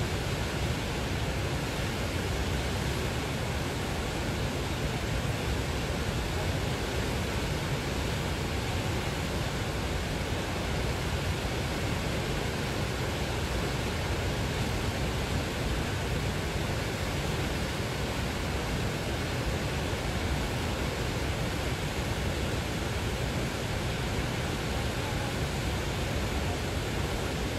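A fast-flowing river rushing over white-water rapids, a steady, unbroken sound of water.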